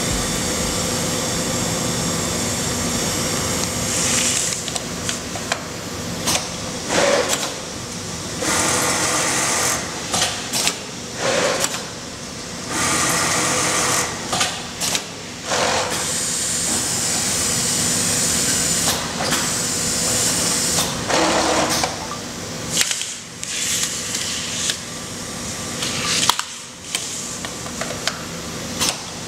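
Automatic template sewing machine stitching a T-shirt placket opening through a plastic template, running steadily, broken by several brief pauses and short sharp noises.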